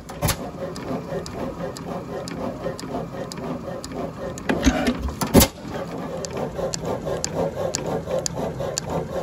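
1903 Columbus 8 hp camstopper hit-and-miss engine running, its valve gear and governor mechanism clattering in a steady rhythm with sharp clicks about twice a second. Two louder knocks come about halfway through.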